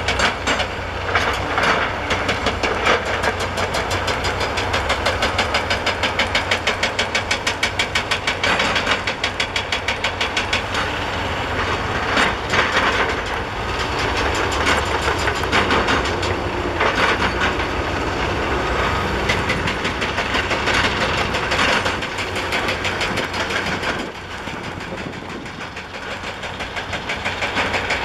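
Excavator-mounted hydraulic breaker hammering rock in rapid, regular blows over the steady run of the excavators' diesel engines. The hammering lets up briefly near the end.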